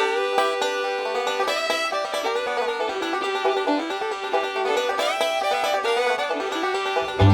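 Background music: a quick plucked-string tune with no bass, until a bass line comes in right at the end.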